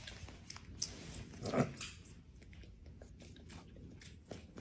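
Faint sounds from a dog: scattered small clicks with one short, louder low sound about a second and a half in.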